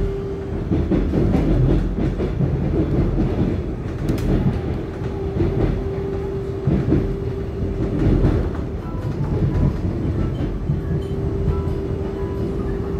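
Interior running noise of a Taiwan Railway EMU700-series electric multiple unit (EMU714+EMU713) under way: a steady low rumble from the car on the track, with a hum that fades out and comes back a few times.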